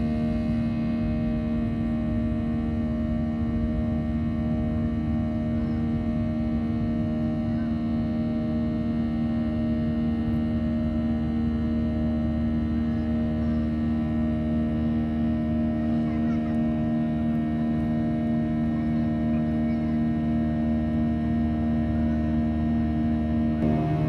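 Jet airliner's engines heard from inside the cabin during the climb after takeoff: a steady drone with several held tones over a low rumble, the tones shifting slightly near the end.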